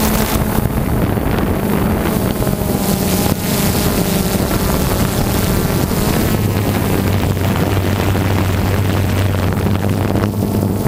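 DJI Phantom 2 quadcopter's electric motors and propellers humming steadily, heard from its onboard GoPro, with wind rushing over the microphone. A lower hum joins about six seconds in.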